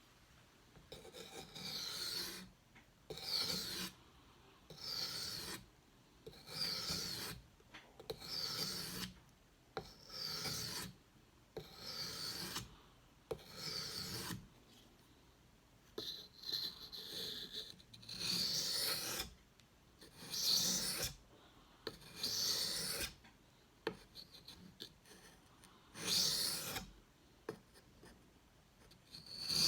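Knife blade being pushed across a King whetstone in slow sharpening strokes, each a scraping rasp about a second long. There are about a dozen strokes, roughly one every two seconds, with a short pause about three-quarters of the way through.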